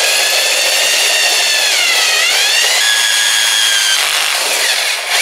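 Cordless drill driving a hole-saw bit into a glazed ceramic pot: a steady grinding with a high squealing whine that sags in pitch about two seconds in, then steadies. A noise like this means the bit has already cut through parts of the pot wall.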